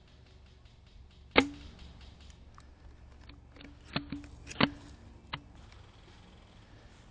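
Airsoft gun shots and mechanism clicks: one sharp snap about a second and a half in, a quick group of three around four seconds in, and a last one near five and a half seconds.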